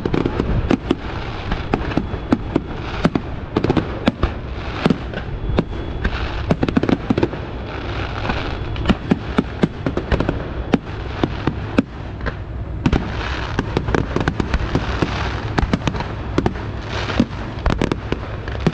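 Fireworks display: aerial shells bursting one after another with sharp bangs, mixed with spells of crackling, over a constant low rumble.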